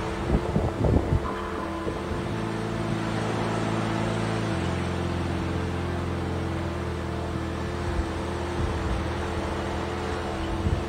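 A steady low droning hum over a constant wash of noise, with a few rough thumps of wind on the microphone in the first second. The hum grows fuller about two seconds in and reaches deeper about four and a half seconds in.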